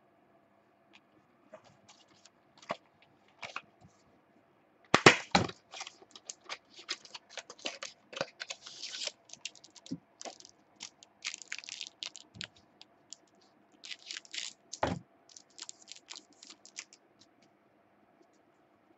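Trading cards and pack wrapping being handled: irregular crackling, clicking and rustling of cards and wrapper, loudest about five seconds in, with another sharp snap near fifteen seconds.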